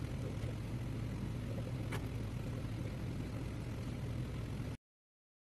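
Box fan running with a steady hum and airy rush, with one light metallic click about two seconds in. The sound cuts off abruptly to silence near the end.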